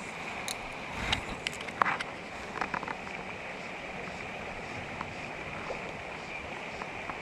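Mountain trout stream rushing steadily over rocks, with a handful of sharp clicks and knocks about one to three seconds in.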